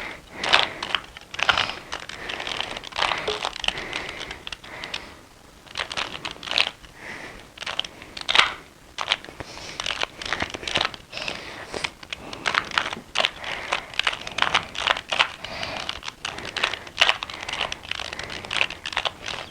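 2x2 Rubik's Cube being turned rapidly by hand, its layers clicking and clattering in quick, irregular runs with short pauses between.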